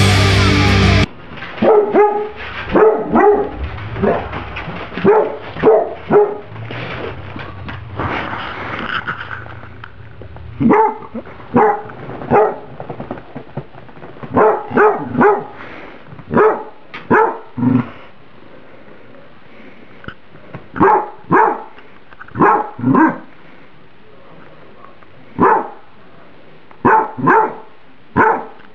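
Dog barking over and over in short sharp barks, singly and in quick pairs and threes, at her bowl of microwaved spaghetti that is still too hot to eat. Loud rock intro music cuts off about a second in.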